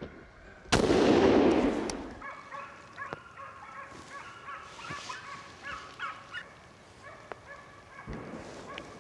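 A single rifle shot cracks about a second in and echoes away through the forest, followed by distant hunting dogs baying with repeated high calls.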